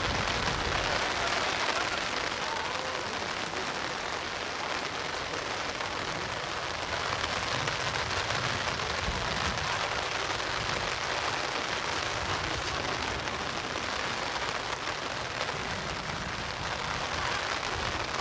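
Steady rain falling, an even hiss, with a low rumble at times.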